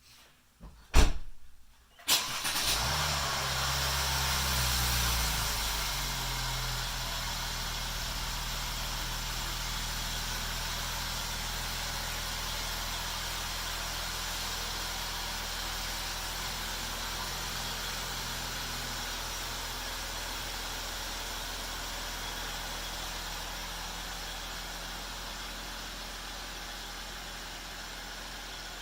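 A sharp thump about a second in, then a Mercedes-Benz GLK 350's 3.5-litre V6 starts at about two seconds, running a little fast at first before settling into a steady idle that slowly fades.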